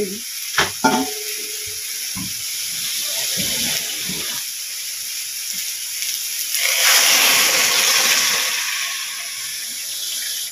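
Sponge gourd sizzling in a hot wok, with a couple of sharp metal clinks of the ladle against the pan about half a second in. Around the middle a louder rush of hiss lasts about two seconds as water in the hot wok boils up into steam.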